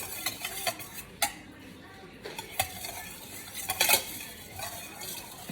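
Pancake batter being stirred in a bowl, the utensil scraping and clinking irregularly against the bowl, with a sharper knock a little past one second and another near four seconds.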